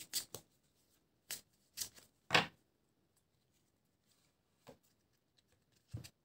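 Cards being handled out of sight: a scattering of short, sharp card snaps and taps, about eight in all, the loudest a little over two seconds in.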